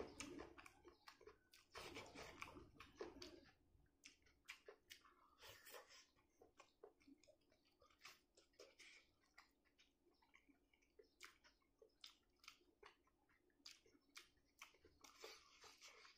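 Faint, close-up chewing and wet mouth clicks of a person eating rice and egg curry by hand, with scattered small clicks throughout. The chewing is denser and louder about two seconds in and again near the end.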